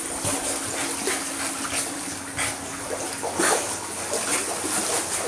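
Boston terrier paddling in a swimming pool: steady churning and splashing water from his strokes.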